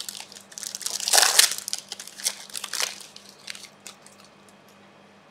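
Plastic wrappers of trading card packs crinkling and crackling as packs are ripped open and handled, loudest about a second in and dying away after about four seconds.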